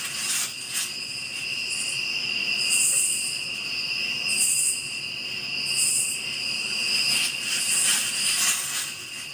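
Insects, crickets among them, chirring: a steady high trill throughout, with shorter, higher-pitched buzzes coming and going every second or two.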